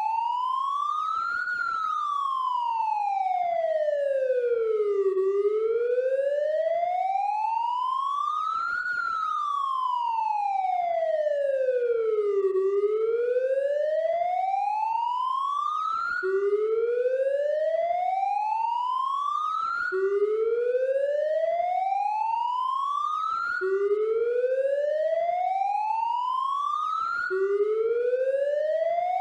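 A siren whose tone sweeps slowly up and then down twice, each rise and fall taking a few seconds. It then switches to a series of rising sweeps about three and a half seconds long, each dropping back abruptly to the low pitch before rising again.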